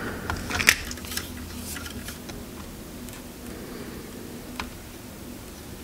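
Soldering iron and copper desoldering braid working a solder joint on a circuit board, giving scattered small clicks and crackles, most of them in the first two seconds and one more later on, over a faint steady hum.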